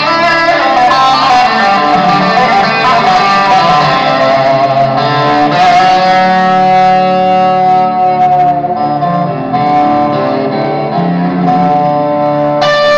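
Music played loud through a pair of Wet Sounds REV 410 marine tower speakers being broken in, echoing off the block walls of a large warehouse.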